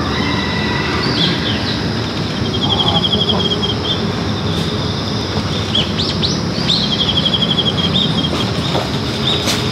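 Birds calling: short, high chirps and two rapid, buzzy trills, about two and a half seconds in and again about seven seconds in, over a steady low rumbling background noise.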